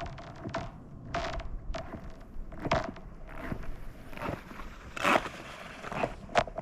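Nordic touring skate blades striking and scraping on thin new lake ice, stride after stride at an uneven pace, with one longer hissing glide about five seconds in. A faint steady ring sounds under the strokes.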